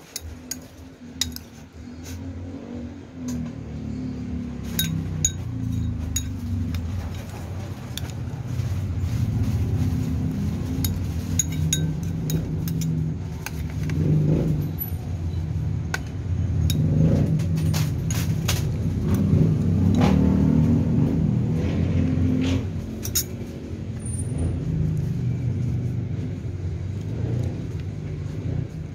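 Low engine rumble of a motor vehicle running close by, swelling and easing, with sharp clinks of a metal spoon against a ceramic bowl and mussel shells.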